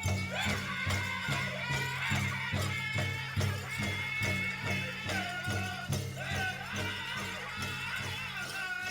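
Powwow drum group singing a song: a steady beat on a large shared drum, about three strokes a second, under high, held voices that slide in pitch.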